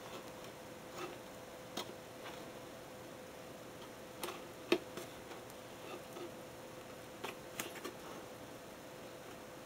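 Small scissors snipping at the taped seam of a cardboard box, a handful of light clicks and taps scattered through, the sharpest a little before halfway. A faint steady hum runs underneath.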